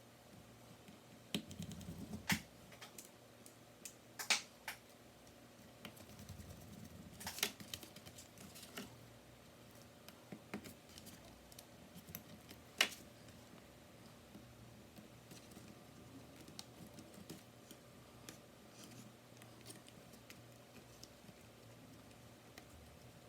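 Sparse light clicks and taps of small laptop parts and tools being handled, a few louder ones in the first half and softer ones later.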